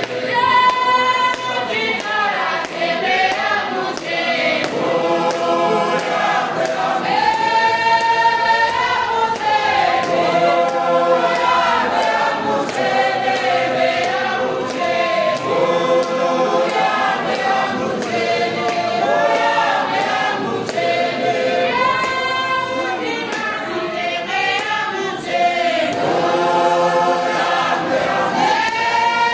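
A large church congregation singing a hymn together, many voices in chorus, continuous and steady in loudness.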